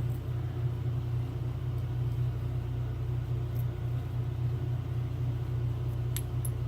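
Steady low background hum, with a few faint light clicks, one about halfway and two close together near the end.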